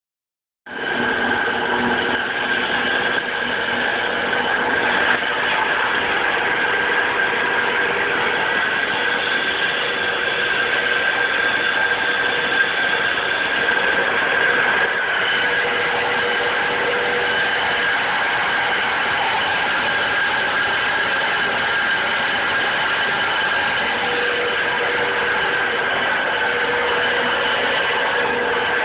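Cheese stretcher running, its electric gear motors giving a steady mechanical noise with a high whine.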